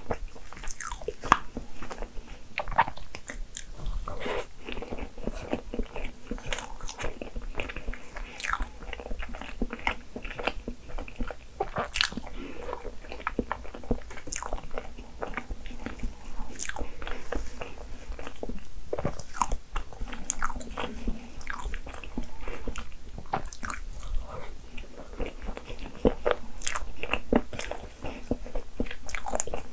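Close-miked chewing and eating sounds of someone eating a crepe cake layered with fresh cream, with many short, sharp mouth clicks throughout.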